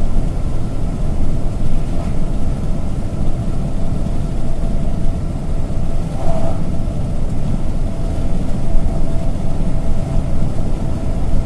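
Steady low rumble of engine and tyre noise heard from inside a truck's cab at highway cruising speed, with a faint steady hum above it. An oncoming tanker truck passes about halfway through, briefly swelling the noise.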